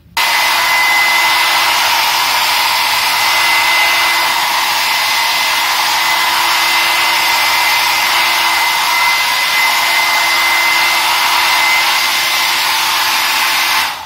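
Nova foldable hair dryer running: a loud, steady rush of air with a thin, high motor whine. It switches on abruptly at the start and shuts off near the end.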